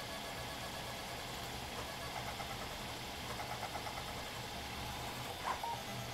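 CoreXY 3D printer (a Printrbot converted to a Hypercube) printing at high speed: its stepper motors buzz and whine as the print head darts about, over a steady low hum. There is a sharp click about five and a half seconds in.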